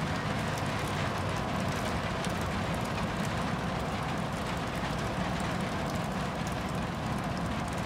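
A rain shower falling steadily: an even hiss with scattered small ticks of drops.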